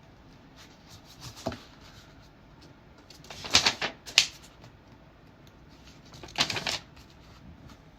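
A paper picture book being handled and its pages turned: a few short papery rustles and taps, the loudest about three and a half seconds in and again about six and a half seconds in.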